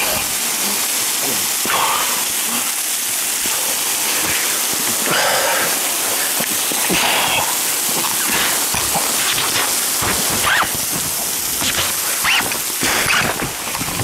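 Waterfall water pouring steadily, loud and close, with short yelps cutting through now and then.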